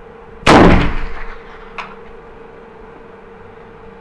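A single shot from a .45-70 Sharps rifle about half a second in: a loud blast that dies away over about a second, followed a little over a second later by a small click.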